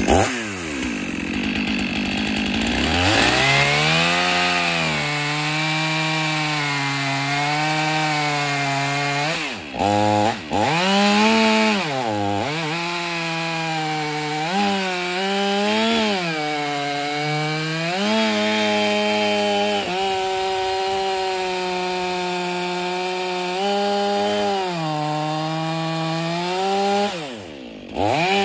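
Stihl 500i chainsaw, a fuel-injected two-stroke, with a 28-inch Cannon Duralite bar cutting through dry beech logs at full throttle. The engine note sags and recovers repeatedly as the chain loads in the wood, with short throttle releases about ten seconds in and again near the end.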